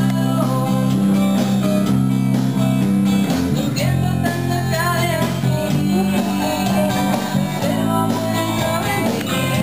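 Music with an electric bass guitar playing a deep, sustained bass line, filled out by other instrument parts above it.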